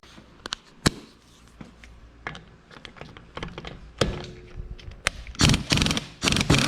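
A series of sharp clicks and knocks, a few scattered at first, then coming quickly and louder for the last second or so, as of hard parts or tools knocking against metal.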